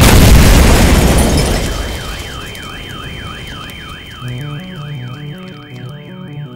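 Soundtrack sound design: a loud noise hit that dies away over about two seconds, giving way to an alarm-like warbling tone rising and falling about two and a half times a second over a steady high tone. A pulsing bass music line comes in about four seconds in.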